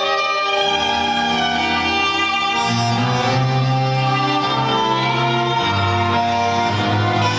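Tango music played over loudspeakers: violins carry long held melody notes over sustained bass notes.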